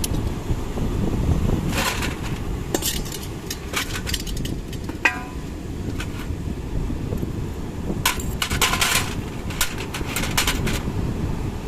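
Scattered metallic clinks and knocks, with one short ringing clink about five seconds in, over a steady low rumble of wind.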